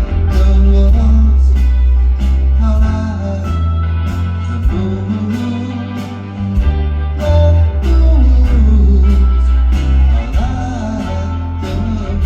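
Live rock band playing loudly: heavy bass, guitars and a steady drum beat, with a voice singing over them.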